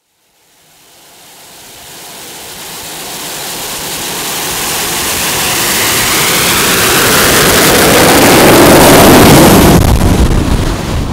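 Twin JetCat turbine jet engines of a quarter-scale radio-controlled Convair F2Y Sea Dart running at high power as the model skims the water on its hydro-skis, their roar and faint gliding whine mixed with the rush of spray. The sound fades in and builds steadily, is loudest about nine seconds in, then drops away.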